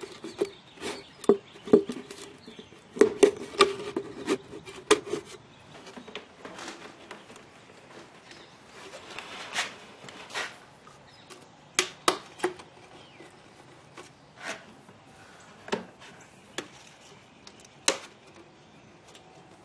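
Cut plastic pop bottles being handled and fitted onto PVC pipe: a string of sharp clicks, taps and knocks of plastic on plastic, close together through the first few seconds, then scattered single ones.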